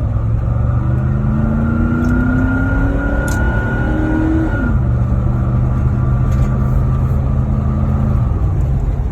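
2003 Ford Expedition's 5.4-litre V8 accelerating hard. The engine climbs in pitch, drops suddenly about halfway through as the transmission shifts up, holds steady, and falls again near the end. A few short, high chirps come through over it: the owner's unexplained chirp under heavy acceleration, which he says is not pinging.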